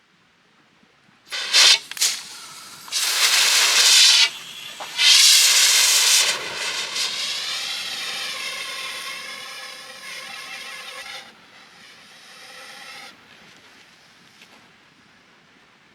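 Hot steel hissing and sizzling in liquid, in several sharp bursts over the first few seconds that settle into a hiss with a wavering whistle-like note, which fades away toward the end.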